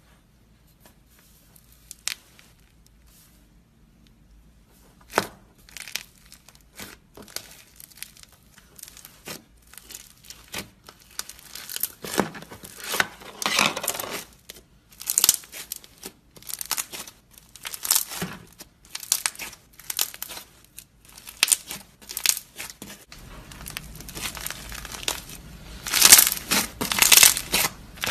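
Foam-bead slime (floam) being pressed and kneaded by hand, crackling and popping in irregular bursts. It starts faint and sparse, grows busier after about five seconds, and is loudest near the end.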